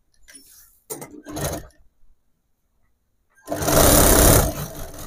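Industrial sewing machine stitching a short seam along the fabric edge: a brief burst about a second in, then a louder run of about a second near the end that trails off as the motor winds down.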